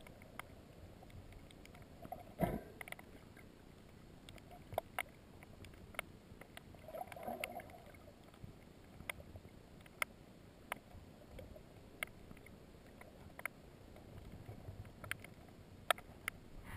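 Underwater sound heard through a camera housing: a faint, muffled wash of water with sharp clicks about once a second, a heavy thump about two and a half seconds in, and a short muffled rush of water around seven seconds in.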